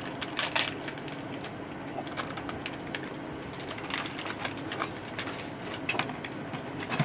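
Small cardboard box of Meiji Apollo chocolates handled and worked open by hand: scattered light clicks and crackles of cardboard and packaging, bunched near the start, around the middle and near the end.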